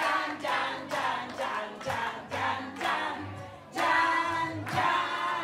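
A group of voices singing together, with a woman's voice led through a handheld microphone.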